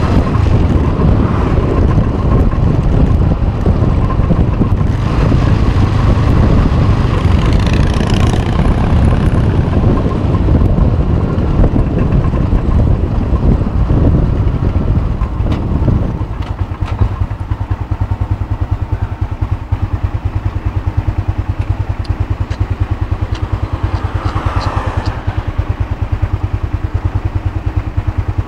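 Cruiser motorcycle engine running under way, mixed with wind noise on a handlebar-mounted phone's microphone. About halfway through it slows and settles into a steady idle with an even, low pulsing beat.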